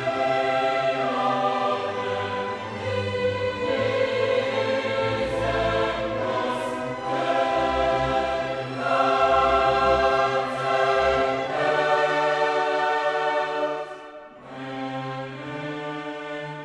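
Background music: a choir singing sustained notes over an orchestra, in a classical style. The level drops near the end.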